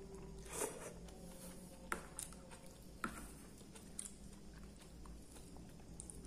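Close-miked eating of soupy instant noodles: a slurp of noodles about half a second in, then chewing, with a few sharp clicks of a metal spoon against the plastic plate.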